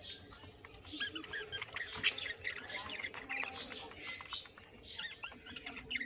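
Several budgerigars chirping and warbling together, a busy stream of short, overlapping calls.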